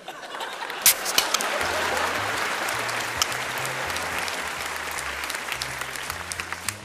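Studio audience applauding, swelling over the first two seconds and then slowly dying away, with a sharp snap about a second in. A bass line of background music runs underneath.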